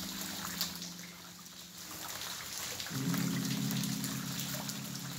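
Heavy rain falling steadily, with scattered drops pattering, under soft background music. The music holds low notes that fade away, and a new chord comes in about three seconds in.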